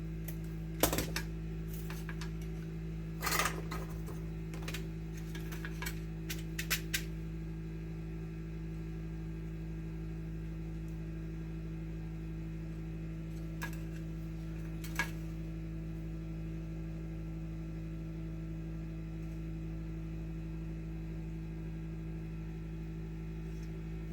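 Small clicks and taps of tools and wire being handled while a neutral wire is connected to a PID controller's terminal. The clicks come in a cluster over the first several seconds and twice more about halfway through, over a steady low electrical hum.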